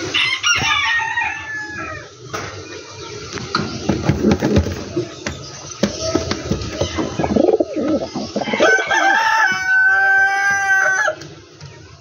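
A rooster crowing: one long held crow of about two and a half seconds near the end, with shorter bird calls in the first two seconds.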